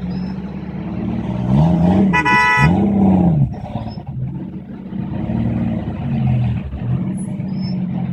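Traffic engines running steadily, with one engine revving up and down twice a little under two seconds in, and a short car horn blast over the revs.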